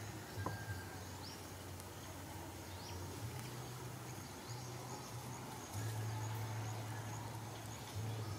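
Outdoor ambience: a low steady hum that cuts in and out in stretches, with a few faint short high chirps and light clicks over it.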